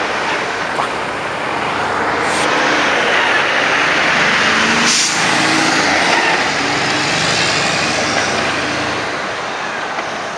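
Diesel tractor-trailer passing close by: engine and tyre noise build up, are loudest around the middle and ease off as the truck pulls away. A short hiss comes about five seconds in.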